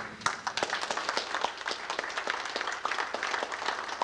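Audience applauding: a sharp knock at the very start, then dense, steady clapping from many hands.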